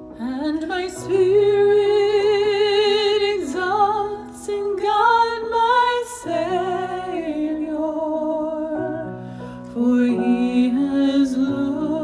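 A woman singing with strong vibrato, holding long notes, over held accompaniment chords.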